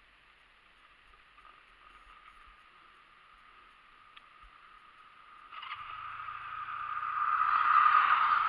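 Near silence for the first half, then a motor vehicle approaching: a low engine hum and tyre and road noise set in about halfway through and grow steadily louder, peaking near the end.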